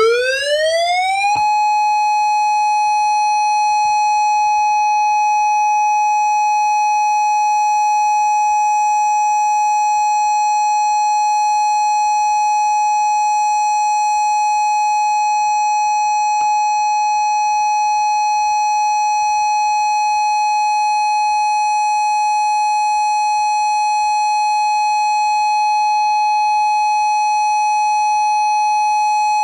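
Outdoor warning siren sounding a test signal: its pitch rises quickly for about a second and a half, then holds one steady tone.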